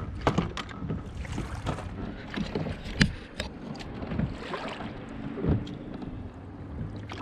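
Scattered knocks and bumps of handling on a fishing kayak over wind and lapping sea water, with one sharp knock about three seconds in.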